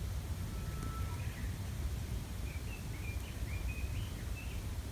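Outdoor ambience with a steady low rumble, over which a bird calls: a thin short whistle about a second in, then a quick run of short chirps in the second half.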